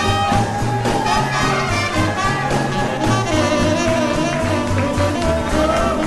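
A small swing band playing live. Horn lines ride over upright bass, rhythm guitar and drums at a steady danceable swing.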